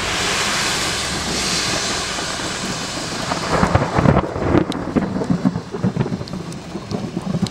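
Thunder from a thunderstorm: a steady rushing noise at first, then a rolling low rumble that swells unevenly from about three and a half seconds in.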